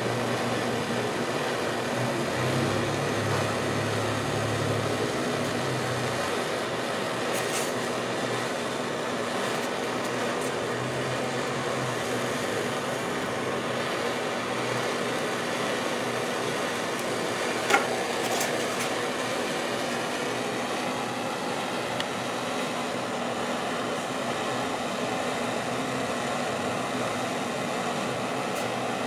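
Propane torch on a small blue cylinder burning with a steady hiss, with a low hum for a few seconds near the start and one sharp click about two-thirds through.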